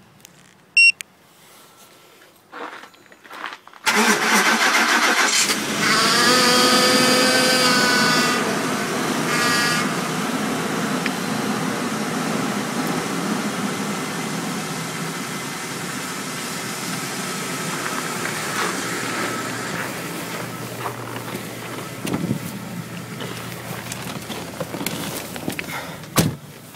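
2007 Ford Expedition's 5.4-litre V8 remote-started in −25 °C cold after sitting overnight. A short electronic beep comes about a second in, then the engine catches about four seconds in and runs at a high, loud cold-start idle that gradually settles to a steadier, quieter idle. There is a knock near the end.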